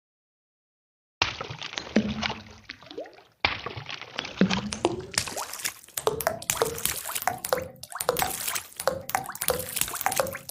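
Rain sound effect of close, slow raindrops: many separate drips and splashes with small pitched plops. It starts about a second in and changes character partway through.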